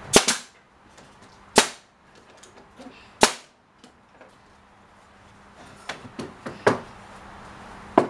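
Brad nailer firing three times into wood, sharp pops about a second and a half apart, followed by a few lighter knocks near the end.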